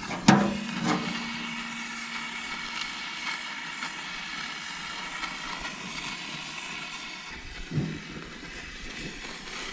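Gas torch fire lighter, fed by a hose from a gas bottle, hissing steadily as its flame is held to the wood in a steel braai stand. A metal clank rings briefly just after the start, and a log knocks onto the grid near the end.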